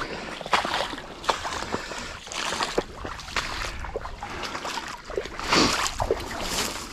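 Footsteps splashing and sloshing through shallow floodwater and mud, in an irregular walking rhythm.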